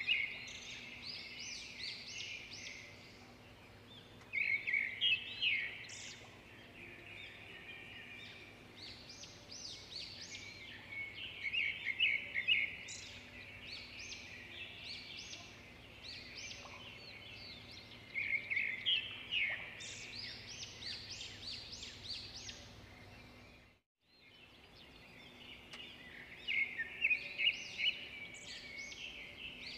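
Songbird singing in bursts of quick, high chirping phrases every several seconds, over a faint steady low hum. The sound cuts out for a moment about 24 seconds in.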